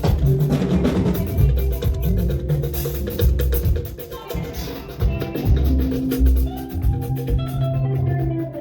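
Music with a drum kit beat, a steady bass line and held pitched instrument tones.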